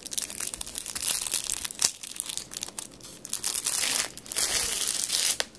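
Thin plastic packaging crinkling as a lightweight separating zipper is pulled out of its bag and card. The rustling comes in uneven bursts, with many small crackles.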